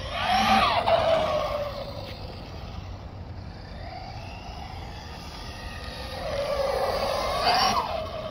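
Electric RC car's motor whining as it speeds past twice, its pitch rising and falling with the car's speed: once about a second in and again near the end, quieter between.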